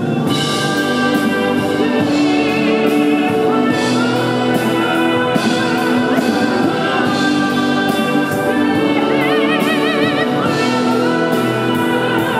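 Music: singing over an orchestral backing with a steady drum beat, with a long held note that wavers in vibrato near the end.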